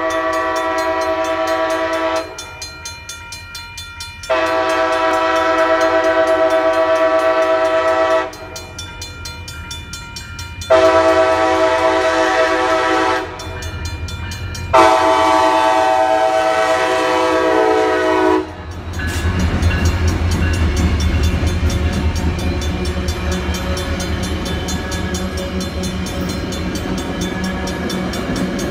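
Passenger train locomotive horn sounding four blasts, the third shorter than the others: the long-long-short-long grade-crossing warning. After that the train rumbles past, with the locomotive and bilevel passenger cars rolling over the crossing.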